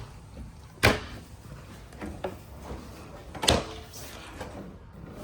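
Kitchen cabinets being opened and shut: two sharp knocks, about a second in and about three and a half seconds in, with lighter clicks between.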